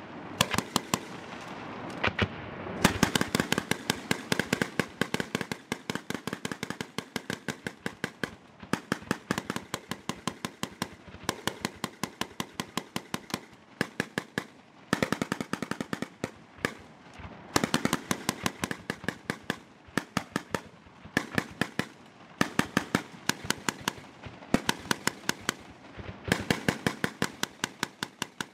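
Sustained automatic gunfire: long runs of rapid shots, many a second, broken by short pauses every few seconds.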